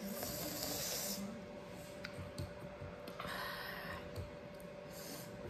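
A woman's sharp, hissing breaths through her mouth and teeth as she winces at a very sour taste: one lasting about a second at the start, another about three seconds in, and a short one near the end, with a few faint clicks.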